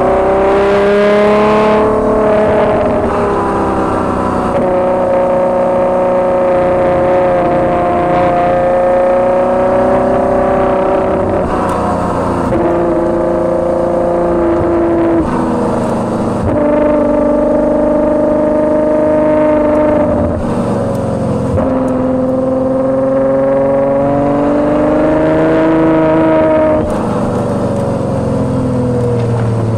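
Ferrari GTC4Lusso's 6.3-litre V12 running through an aftermarket Capristo exhaust while driving, a loud steady note heard from just behind the tailpipes. Several times the note briefly breaks and settles at a new pitch.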